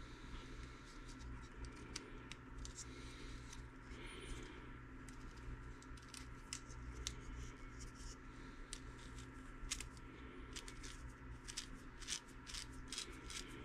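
Faint clicks and scrapes of small plastic and metal RC axle parts for a WPL B16 being handled and fitted together by hand. The clicks come more often near the end, over a steady faint hum.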